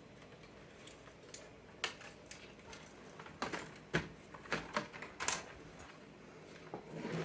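Scattered light clicks and rattles of small parts being handled: a desk telephone's circuit board and plastic housing being taken apart by hand. There are a few sharp clicks, the clearest about two, four and five seconds in.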